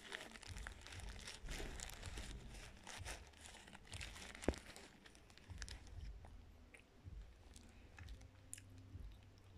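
Dry cornstarch crunching and squeaking close to the microphone: a dense run of small crackles that thins out about halfway, with one sharp crack about four and a half seconds in.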